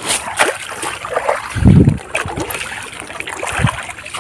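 Shallow river water splashing and sloshing as a hand fishing net is worked through it, with one heavier, deeper slosh a little under two seconds in.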